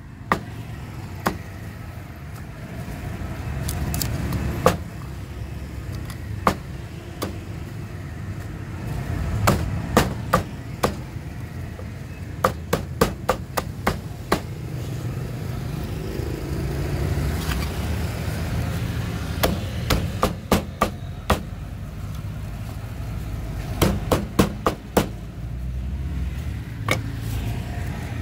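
Meat cleaver chopping through bone-in roast duck on a round wooden chopping block: sharp chops, some single and some in quick runs of four or five strokes. A steady low rumble runs underneath.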